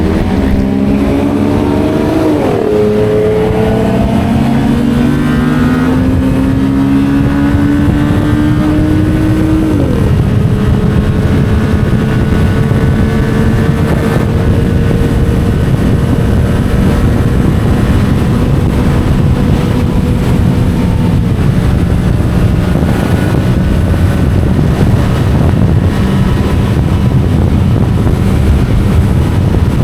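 Yamaha MT-07's 689 cc parallel-twin engine through an Akrapovic titanium exhaust, revving up through the gears with sharp drops in pitch at the upshifts about two and a half and ten seconds in. It then holds a steady pitch at cruising speed until it eases off about twenty-one seconds in.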